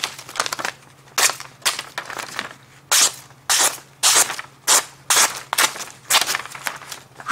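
D2-steel pocket knife slicing through a hand-held sheet of printer paper in about a dozen quick, crisp strokes, roughly two a second. The clean cuts show the blade is very sharp straight out of the box.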